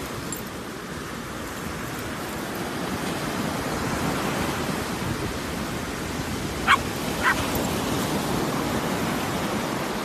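Surf breaking and washing up a beach, a steady rushing. About two-thirds of the way through, a pug gives two short barks in quick succession.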